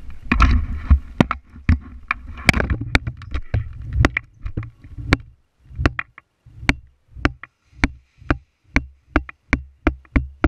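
Rustling and clattering of a player moving hurriedly, then a run of footsteps, each a sharp knock with a low thud, about two to three a second.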